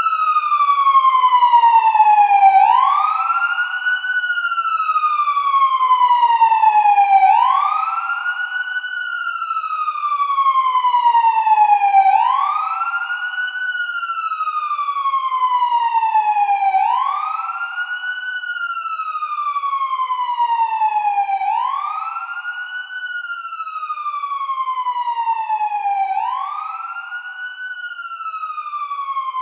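Police car siren in wail mode: each cycle sweeps quickly up in pitch, then glides more slowly back down, repeating about every four and a half seconds, six times over.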